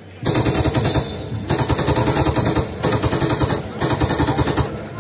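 Machine-gun fire in four rapid bursts of about a second each, separated by short breaks: a sound effect for a staged shooting, not real gunfire.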